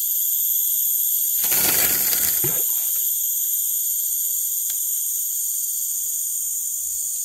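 Steady high-pitched chorus of forest insects, with a brief rushing noise lasting about a second, about one and a half seconds in.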